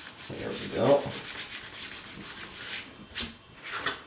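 Fingers rubbing hinge tape down onto the foam tail surfaces, a scratchy hiss of rapid, closely spaced strokes that ends with a couple of sharper swipes near the end.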